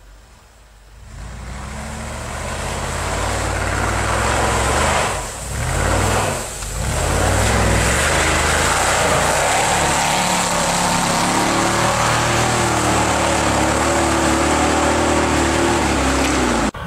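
Mercedes-Benz G500's V8 engine pulling hard under load as the SUV ploughs through snow and mud, with a dense rush of splashing slush. It builds up about a second in, dips briefly twice, then holds steady and loud before cutting off suddenly near the end.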